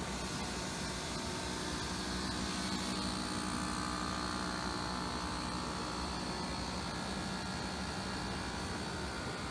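Interfil IC45AV self-cleaning high-speed basket centrifuge running continuously: a steady mechanical hum and hiss with a thin high whine, which grows a little louder and clearer for a few seconds in the middle.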